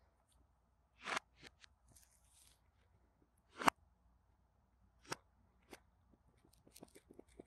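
Gloved hands handling a smartphone's cardboard retail box: a few separate taps and rustles of glove on cardboard, the loudest about halfway through, with a run of smaller quick clicks near the end.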